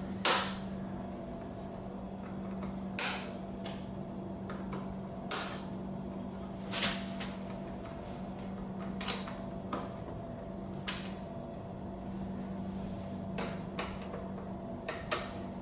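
Scattered light clicks and knocks, a dozen or so at uneven intervals, of small parts and wiring being handled, over a steady low hum.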